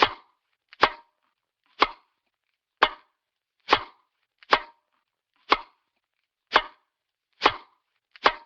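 Cartoon sound effect: a series of sharp, dry knocks, about one a second and ten in all, each dying away quickly, with a faint small tap just before a few of them.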